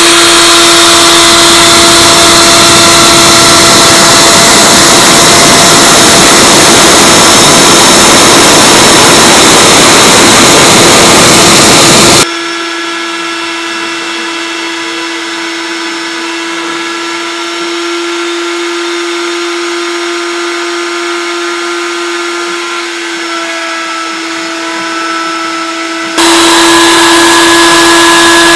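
A wood router working as the spindle of a CNC machine, running with a steady whine while its bit cuts a circular pocket into a wooden coaster. About twelve seconds in the sound drops suddenly to a quieter steady whine, and it comes back loud about two seconds before the end.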